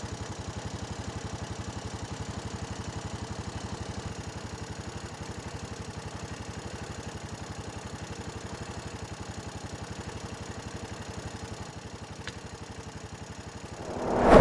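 ATV engine running steadily, with a fast, even pulsing.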